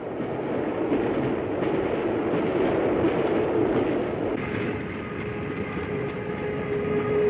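Steam express train running at speed, a dense steady rumble of the locomotive and carriages. About two-thirds of the way in a steady pitched tone comes in and grows louder.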